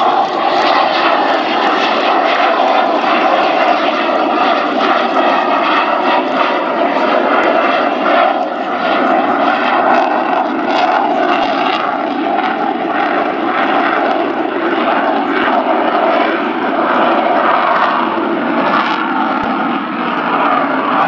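Twin RD-33 turbofan engines of a MiG-29 Fulcrum running at high power with both afterburners lit, a loud, steady jet noise.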